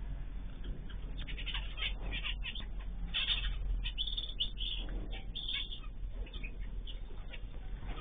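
Small aviary birds, canaries and finches, chirping in many short, scattered calls, starting about a second in, over a steady low hum.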